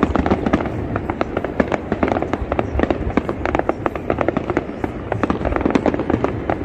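Aerial fireworks display: a fast, unbroken run of shell bursts and crackles, several sharp bangs a second.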